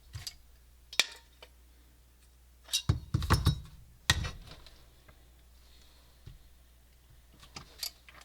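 Anodised aluminium camera-cage parts clicking and clinking as they are handled and fitted together: a sharp click about a second in, a cluster of knocks around three seconds, another sharp knock just after four seconds, and a few light clicks near the end.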